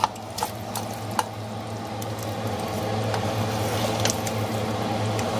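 Cooked chicken pieces scraped out of a glass bowl with a spatula and plopping into a pot of simmering soup, with a few sharp clicks of the spatula on the bowl in the first second or so and one more about four seconds in, over a steady bubbling from the pot.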